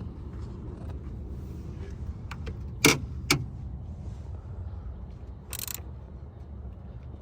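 Two sharp metallic clicks close together and a brief rustling scrape as a loose truck battery terminal is handled and tested, over a steady low rumble.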